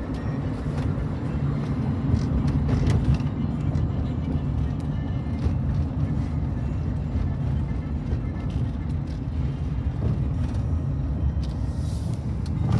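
GE Evolution Series diesel locomotives (an ES44AC leading, ES44DC units trailing) rumbling steadily as the train passes, with a deep, even engine drone.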